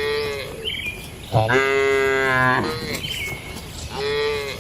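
Cattle mooing: three calls, a short one, then a long, loud, held moo, then another short one.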